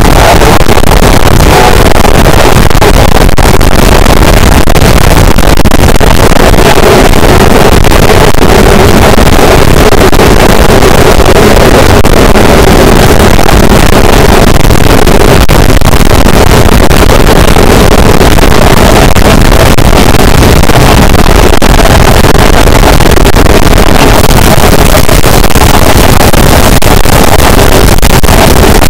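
Harsh noise wall: a dense, unchanging wall of distorted static at full volume, with a stronger band low in the middle of the range.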